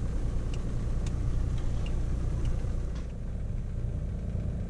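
Small motorboat's engine running steadily under way, a low hum; the level dips slightly about three seconds in.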